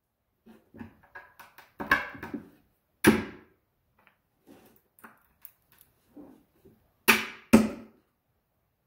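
Hammer tapping metal bolts into holes in a wooden board: a few sharp knocks, the loudest about three seconds in and a quick pair near the end, with lighter clicks between.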